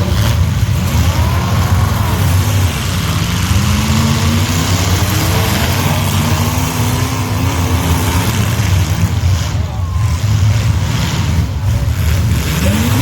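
Demolition derby cars' engines running hard and revving, a loud low rumble with engine pitch rising and falling.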